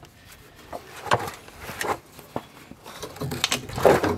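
Scattered knocks and rattles of hand work under a car at a rusted rear coil spring, with a busier run of knocks in the last second.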